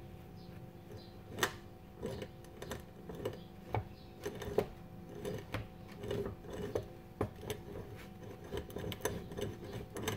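Worn universal joint on a 2006 Nissan Xterra driveshaft, flexed back and forth by hand, clicking and knocking irregularly about once or twice a second. The knocking is the play in the worn joint, the cause of vibration in the driveline.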